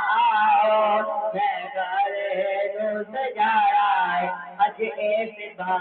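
A man singing a naat, an Urdu devotional song, in long wavering phrases, with children's voices singing along.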